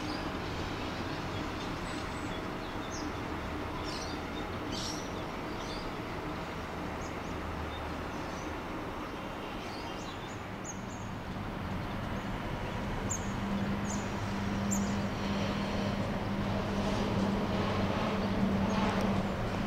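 Diesel locomotive engine hum from a shunting train in the distance, with scattered bird chirps; the hum fades away. About two-thirds of the way through, a different steady engine tone comes in and grows louder: an NR class diesel-electric locomotive approaching, hauling a fuel train.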